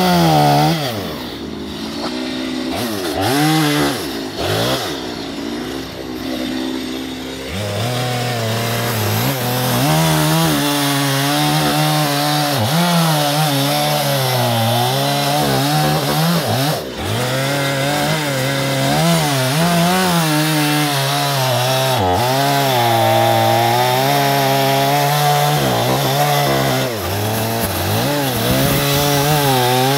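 Two-stroke gas chainsaw cutting into a western red cedar log. It runs at lower, varying revs for the first several seconds, then at full throttle from about eight seconds in, its pitch repeatedly dipping and recovering as the chain bites into the wood.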